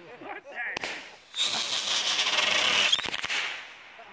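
Consumer firework cake firing: a sharp report just under a second in, then a loud hissing rush of about a second and a half that fades out, with a few sharp pops near the end.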